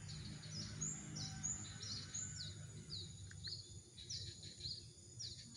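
A small bird calling over and over, short high chirps that each drop quickly in pitch, about three a second, over a steady low outdoor hum.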